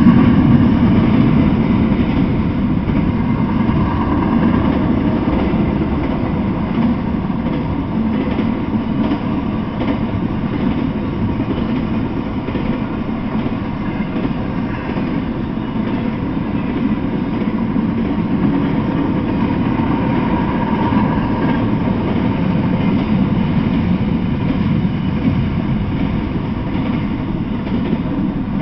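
Double-stack intermodal freight train cars rolling past close by: a loud, steady rumble of steel wheels on the rails that holds without a break.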